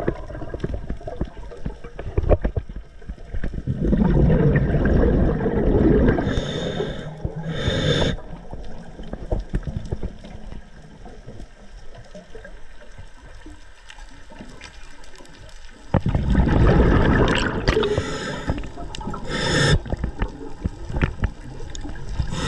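Underwater water noise around a diver's camera: a low rushing and sloshing, with two louder surges of about four seconds each, one near the start and one about two-thirds of the way through.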